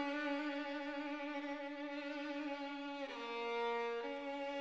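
Background music: a solo violin playing a slow melody of long held notes, changing pitch about three seconds in and again a second later.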